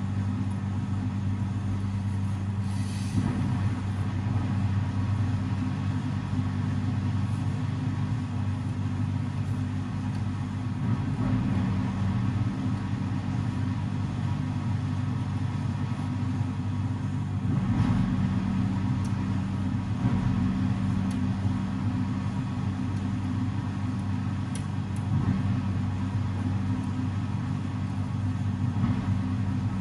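Steady low machine hum, like a motor running without pause, with a few brief rustles and knocks from upholstery fabric being pulled and handled.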